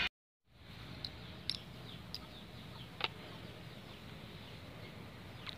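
Faint outdoor ambience with a few short, high bird chirps scattered through it and a light click about three seconds in.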